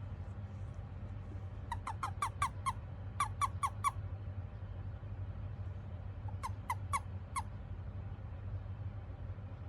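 Eastern Japanese common toad giving its release call, the chirping that a toad makes when it is picked up or grasped. The chirps come in three quick runs of about six, five and four, over a faint steady low hum.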